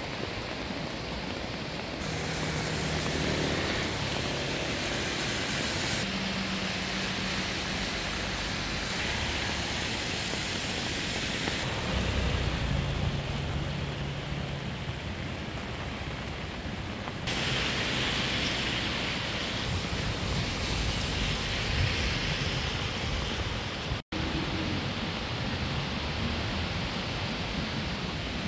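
Steady rush of a rain-swollen, flooded stream with rain falling, a continuous noisy wash of water. The noise changes abruptly several times and drops out for an instant shortly before the end.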